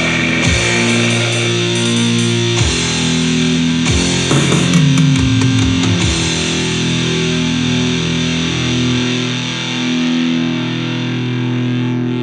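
Goregrind band playing distorted electric guitar, bass and drums. The drum hits stop about halfway through and the last chords are left ringing out, with the deep bass dropping away near the end.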